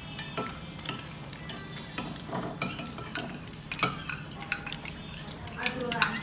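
Cutlery and dishes clinking and scraping at a meal table: an irregular run of short sharp clinks, with a louder clink about four seconds in and another near the end.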